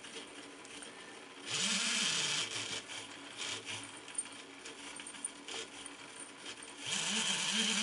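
A toy robot arm's small DC gear motors whirring through their plastic gearboxes in two short bursts, about a second and a half in and again near the end, each rising then falling in pitch as the motor speeds up and slows. The arm is being driven through an H-bridge by a PID controller, homing toward the set point from the potentiometer.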